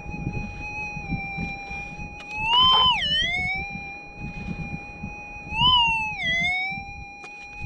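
Minelab gold detector's steady threshold hum, rising in pitch twice as a scoop of soil holding a gold nugget is passed over the coil, each rise followed by a brief dip below the resting pitch. Low scraping and handling noise of the scoop and dirt sit underneath.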